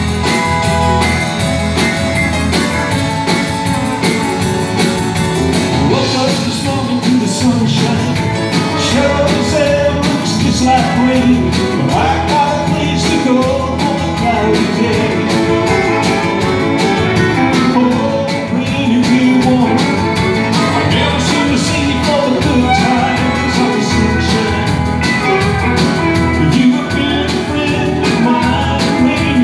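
Live country band playing: acoustic guitar, fiddle and drums, with a man singing.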